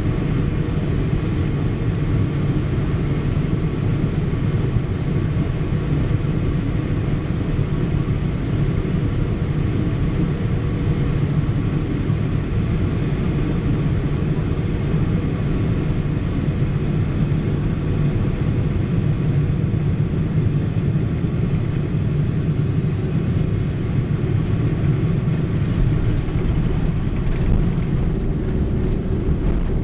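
Steady low rumble of cabin noise inside a Boeing 777-300ER in flight, from its engines and the airflow, with faint steady tones above it. The deepest part of the rumble grows a little near the end.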